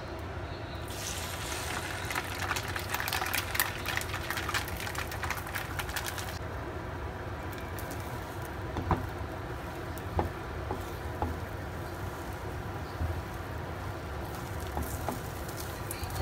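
Beaten eggs sizzling in a hot non-stick frying pan: a dense crackling starts about a second in as they hit the pan and settles after about five seconds into a softer hiss. A few light knocks come as a silicone spatula stirs the setting eggs.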